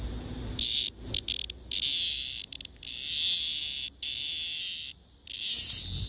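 Male blackish cicada (Cryptotympana atrata) buzzing loudly in a string of harsh bursts, a few short stuttering ones and then several longer ones of about a second each, while held with the female and as it takes off.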